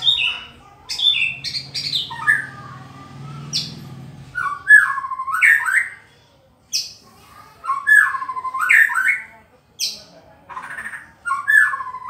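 White-rumped shama (murai batu) singing loud whistled phrases mixed with sharp high notes, one similar phrase repeated about three times in the second half.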